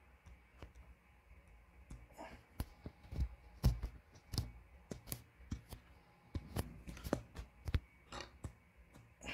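Stylus tapping and writing on a tablet's glass screen: faint, irregular sharp taps, about one or two a second.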